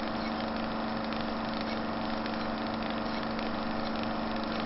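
A steady engine-like mechanical hum at an even level, with a held low tone and a faint regular pulse underneath.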